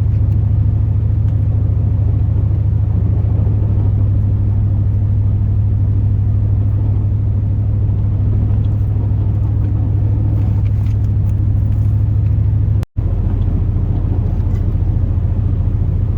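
Steady low drone of a 2002 Chevrolet Silverado's 8.1-litre big-block gas engine and road noise, heard inside the cab. The sound cuts out for an instant about thirteen seconds in, then carries on.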